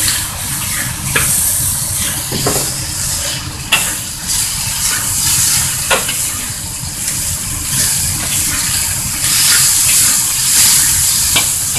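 Chicken breast pieces sizzling in hot oil in a wok, a steady hiss, while a spatula stirs them, scraping and clicking against the wok every second or two. The chicken is nearly cooked through.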